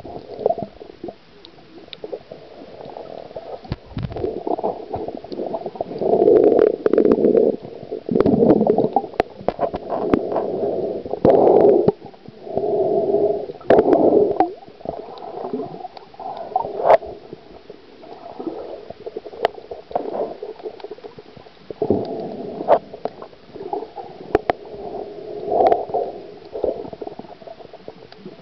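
Muffled underwater gurgling of bubbles in irregular bursts about a second long, a few seconds apart, with scattered sharp clicks and knocks.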